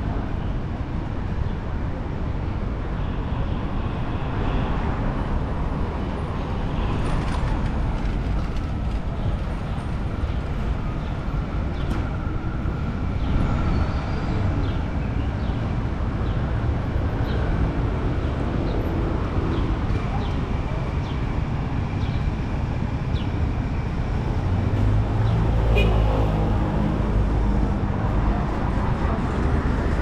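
City street traffic running steadily. Late on, a heavier vehicle's engine passes close by and briefly becomes the loudest sound.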